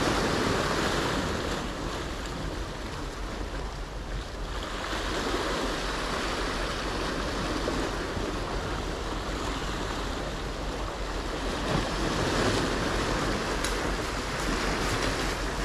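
Small sea waves washing in and breaking over the boulders of a rock jetty, swelling and easing every few seconds.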